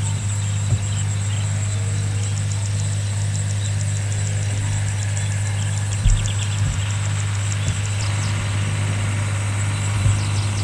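A steady low mechanical hum, like a motor running, with faint rapid high ticking over it and a couple of brief low thumps.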